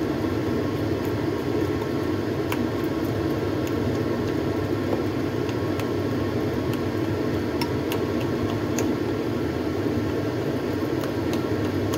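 Steady mechanical hum, with a few light scattered clicks as ground fish paste is stirred in a bowl.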